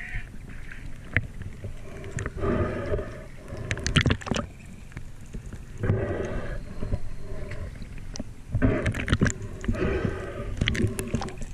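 Water gurgling and sloshing around a camera held at the water's surface, in bursts about every three seconds with a few sharp splashes.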